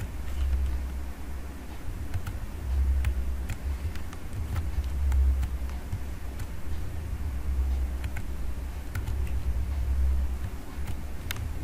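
A low background rumble that swells and fades every second or two, with scattered sharp clicks.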